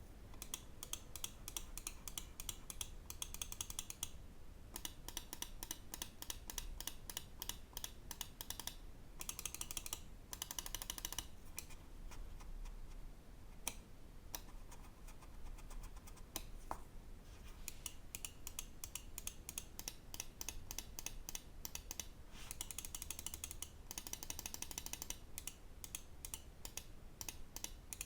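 Lamzu Thorn gaming mouse clicking: runs of quick, sharp button clicks, several a second, broken by short pauses.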